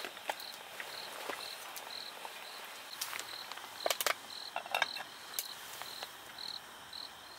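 An insect chirping steadily at night in short, high, evenly spaced chirps, about two a second, with scattered sharp clicks and snaps between them.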